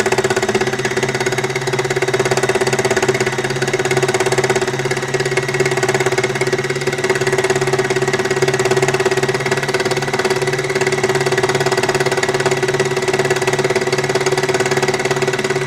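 Baby Lock Embellisher needle-felting machine running at a steady speed, its barbed felting needles punching rapidly through metallic fabric into a duck-cloth base with an even mechanical hum.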